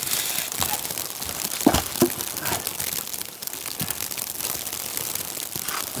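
Crunching and rustling of someone moving about on wet ground and handling things, with two hard knocks about two seconds in, over a steady hiss.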